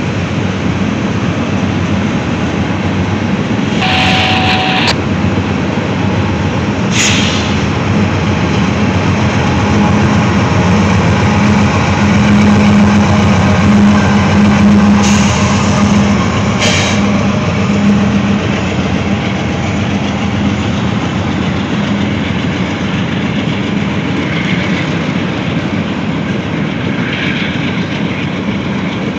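Freight train rolling past, with a steady rumble of cars on the rails. A mid-train diesel locomotive goes by about halfway through; its engine drone is loudest then. A few brief sharp sounds break through, the first a short squeal about four seconds in.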